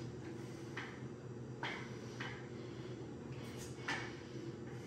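A man's short, sharp exhalations, about five, spaced unevenly, as he works through seated one-arm dumbbell curls, over a faint steady room hum.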